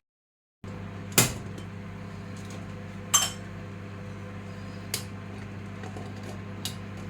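Kitchenware clinking: four short, sharp knocks spread over several seconds, the first two loudest, over a steady low hum.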